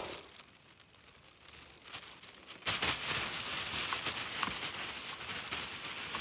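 Rustling and splashing as hands grab through grass and shallow water after a loach. It starts suddenly about two and a half seconds in, after a quieter stretch, and goes on as a steady rough noise.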